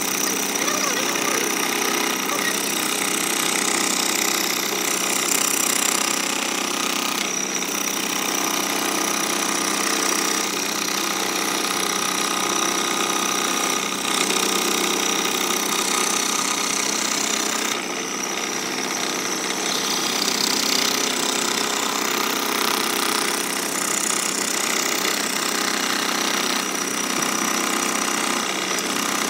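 Scroll saw running steadily, its thin reciprocating blade cutting curved shapes out of a thick wooden plank.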